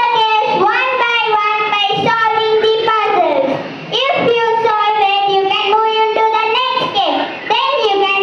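Children singing a song in long, held phrases, with short breaks between phrases about three and a half and seven and a half seconds in.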